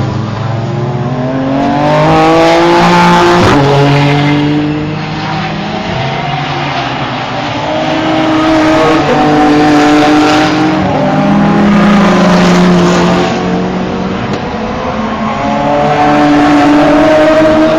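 GT race cars going past at racing speed, their engines revving hard. The engine pitch climbs and then drops sharply at each upshift. Several cars overlap in three waves: about two seconds in, in the middle, and again near the end.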